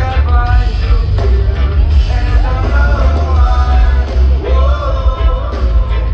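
Live rock band playing loudly with a singer, heavy bass and drums underneath a sung melody.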